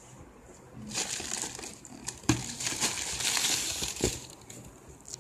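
Plastic air-cushion packing crinkling and rustling as a boxed camera is pulled out from among it inside a cardboard carton, with a couple of knocks. The crinkling starts about a second in and dies down near the end.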